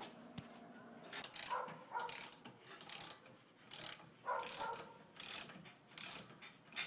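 Socket ratchet wrench clicking in short repeated bursts, about one every 0.7 s, beginning a little over a second in, as it runs the top nut down onto a shock absorber's shaft.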